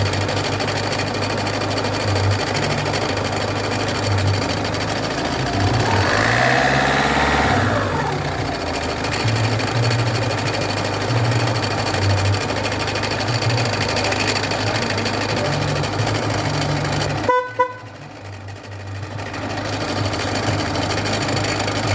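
Peugeot 206 1.4 HDi four-cylinder diesel engine running with a loud, uneven knocking rattle from a damaged crankshaft pulley. The noise briefly rises and falls in pitch about six seconds in. Near the end it cuts back sharply after a short beep, then builds up again.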